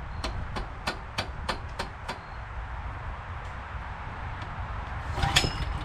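Recoil pull-starter on a Honda GX390 engine being drawn slowly, ticking about three times a second for two seconds, with a louder clatter near the end; the engine does not fire.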